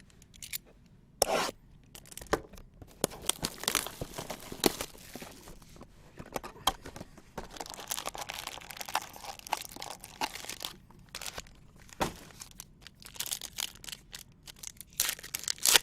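Sealed boxes and packs of trading cards being torn open by hand: irregular tearing, ripping and crinkling of wrapping, with sharper rips about a second in and near the end.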